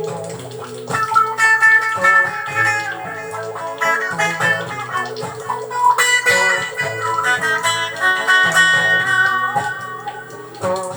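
Guitar jam: a quick line of plucked guitar notes over a repeating low bass part.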